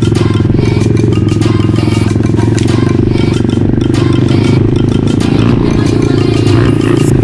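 ATV engine running steadily under throttle, with frequent short knocks and clatter from the machine.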